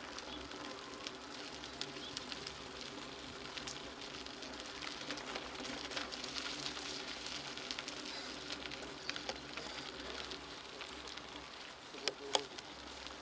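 Bicycle tyres rolling over wet asphalt, a steady wet hiss scattered with small ticks and clicks, with a couple of sharper clicks near the end.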